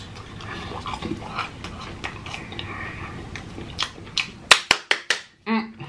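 Close-miked chewing of a ranch-dipped chicken McNugget, with soft wet mouth sounds. About four seconds in comes a quick run of sharp clicks, followed by a short hummed "mm" near the end.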